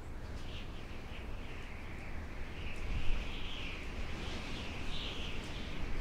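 Howling wind: a whistling tone that wavers up and down over a low rumble of gusts.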